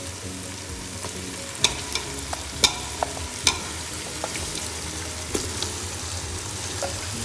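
Raw chicken pieces being added to a pot of hot, oil-separated onion, tomato and ginger-garlic masala and stirred, frying and sizzling steadily. A few loud sharp knocks of a utensil against the pot come between about one and a half and three and a half seconds in.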